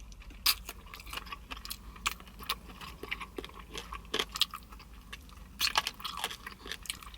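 Close-miked chewing of a honey garlic chicken wing: irregular wet smacks and sharp clicks of mouth and teeth working through the meat.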